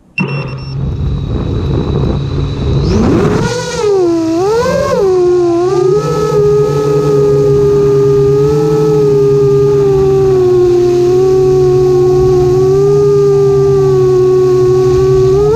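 Onboard sound of an RC plane's electric motor and propeller: it spins up with a rising whine about three seconds in, wavers in pitch for a couple of seconds, then runs at a steady throttle, with rumbling wind noise on the onboard camera's microphone.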